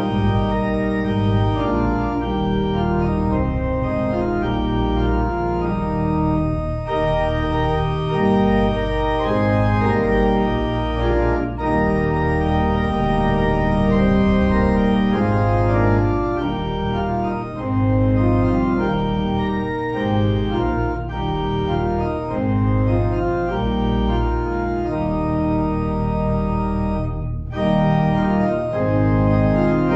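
Organ playing slow, sustained chords over a moving bass line, with a brief pause between phrases near the end.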